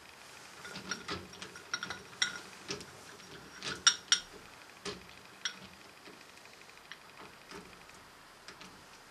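Scattered metallic clicks and knocks from a three-jaw lathe chuck and its chuck key as a tape-wrapped clock barrel is set in the jaws and clamped. The two sharpest clanks come about four seconds in.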